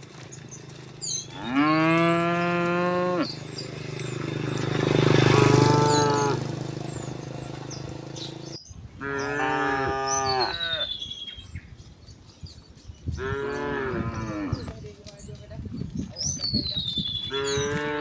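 Cattle mooing, about five long moos a few seconds apart, one after another from the herd.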